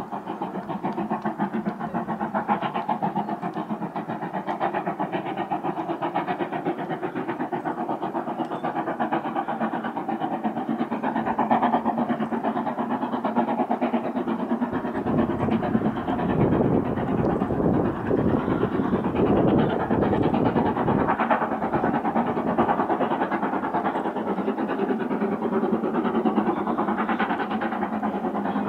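Steam train running, a dense rapid clatter of chuffing and rail noise that grows louder and heavier about halfway through.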